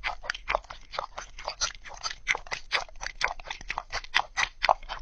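A cat crunching dry kibble, quick crisp bites about five a second.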